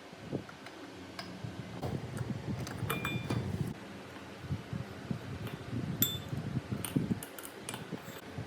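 Small metal parts clinking and tapping, irregular clicks with a brief ringing tone about three and six seconds in and a quick cluster near the end, over a low uneven rumble of handling.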